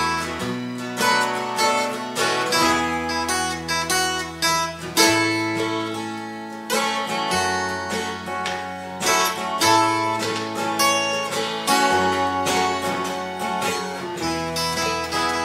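Instrumental break of a country-style song: acoustic guitars strummed in a steady rhythm over low sustained notes that change every second or two.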